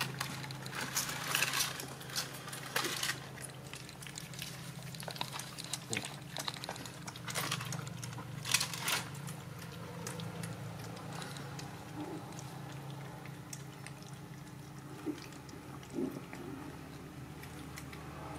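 Puppies lapping milk from a shallow plastic tray: quick wet slurps and small splashes, busiest in the first half, then only now and then.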